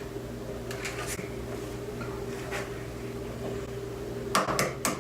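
A steady low appliance hum, then near the end a quick run of sharp taps as an egg is knocked against a hard edge to crack its shell.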